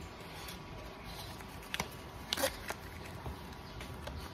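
Paper booklets and a card being handled and shuffled by hand, with a few short, sharp paper flicks about halfway through, the loudest a little past the middle, over a steady low background.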